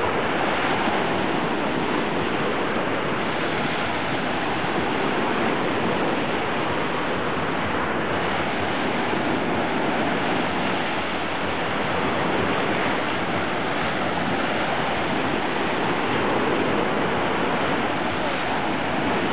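Small sea waves breaking and washing up a sandy beach: a steady surf wash.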